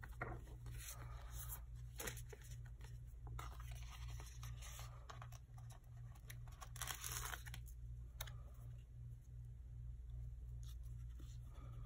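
Paper sticker sheets rustling as they are handled, with short crinkles, scrapes and the peel of stickers coming off their backing, including a longer peel about seven seconds in. A faint steady low hum runs underneath.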